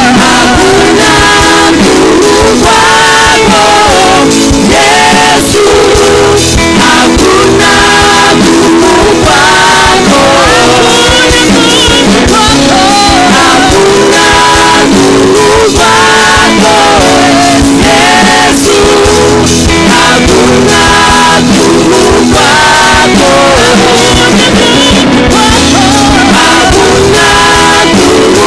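Loud live worship music: voices singing a melody over a full band with guitar and a steady beat.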